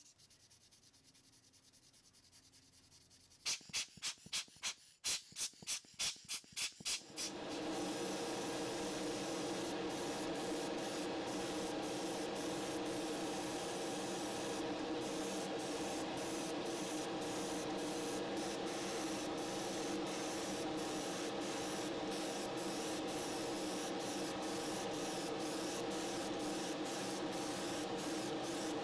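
Sandpaper rubbed over a plastic model car body in about ten quick strokes, then, from about seven seconds in, a steady hiss of primer being sprayed onto the body, with a steady hum under it, that cuts off at the very end.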